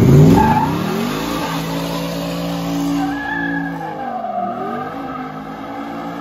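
Ford F-150 Raptor R's supercharged 5.2-litre V8 revving up hard and held at high revs during a smoky burnout, its tyres squealing as they spin on the asphalt; the revs dip briefly about four seconds in and climb again.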